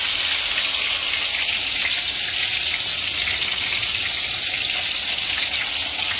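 Whole porgy fish deep-frying in hot oil in a skillet: a steady, unbroken sizzle.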